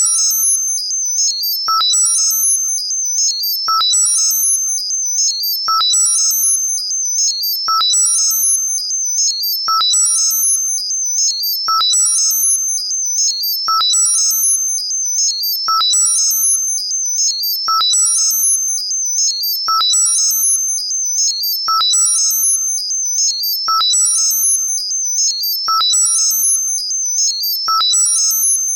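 Synthesized high-pitched tinnitus-masking sound, modulated. A steady high tone runs under clusters of rapid high notes, and a short lower beep with a click repeats evenly about every two seconds.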